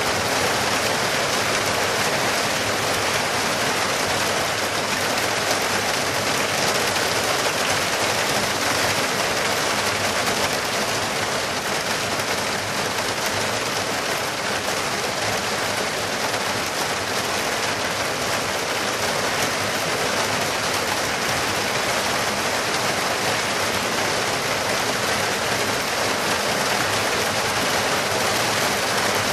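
Debris flow of mud and rock rushing down a mountain gorge channel: a steady, loud rush of churning water and slurry with no separate knocks standing out.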